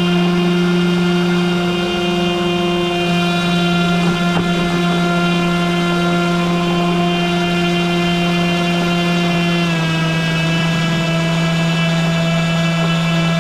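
RC airboat's brushless electric motor and air propeller running with a steady whine; the pitch drops a little about ten seconds in.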